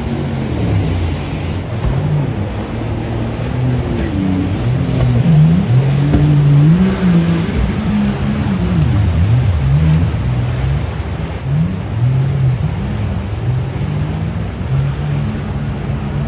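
Supercharged mini jet boat's engine revving up and down repeatedly as it fights its way up a whitewater rapid, over the steady rush of the water.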